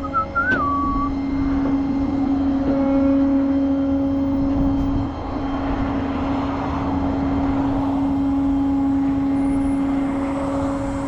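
Tow truck's engine running at a steady speed, a constant drone.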